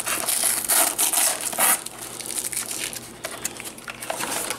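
Cardboard packaging and tape being pulled and handled: dense crinkling and scraping for the first couple of seconds, then lighter rustles and small clicks.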